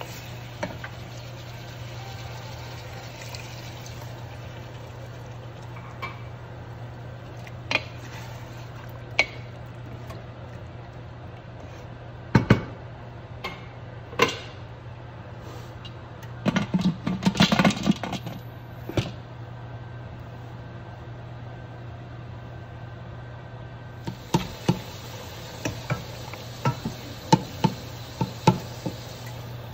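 Kitchen cookware sounds over a steady low hum: scattered clicks and knocks of a utensil against a metal pot, with a louder burst of clatter about 17 seconds in. Near the end come quick, repeated taps of a spoon in a steel pot as boiled turnip is mashed.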